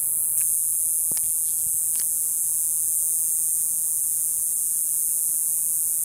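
Cicada singing: a steady, high-pitched buzz that holds without a break, with a few faint clicks in the first two seconds.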